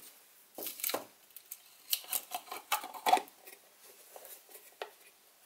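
Hands handling a small perspex enclosure and its back panel: irregular light clicks, taps and scrapes of plastic against plastic and paper as the panel is fitted onto the case.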